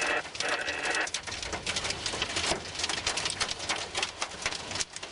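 Heavy rain pelting a car's roof and windshield, heard from inside the cabin as a dense, rapid patter of drops.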